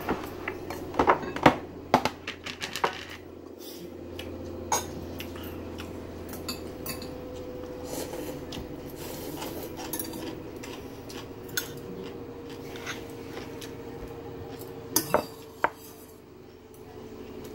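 A metal spoon and bowls clinking during a meal: a cluster of sharp clinks in the first three seconds, scattered clinks after, and two more about fifteen seconds in, over a faint steady hum.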